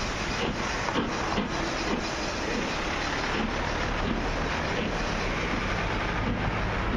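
Steam-hauled passenger coaches rolling along the track, a steady rumbling noise with a few faint knocks in the first couple of seconds.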